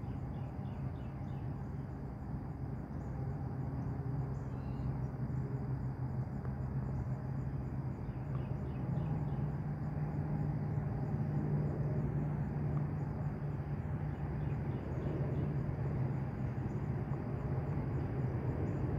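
Insects chirring steadily in marsh vegetation, over a steady low hum.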